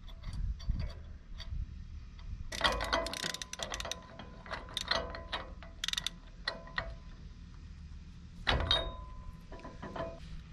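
Ratchet clicking in quick runs and metal tools clinking as the outer spindle nut on the front hub is tightened, with one louder ringing metal clang near the end.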